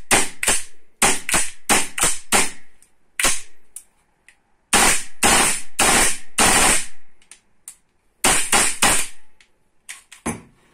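Golden Eagle AR-15 gas blowback airsoft rifle firing repeated shots in quick strings, each a sharp crack as the gas drives the bolt back, with a longer run of shots in the middle. The rifle is firing from a gas magazine to test the blowback kick.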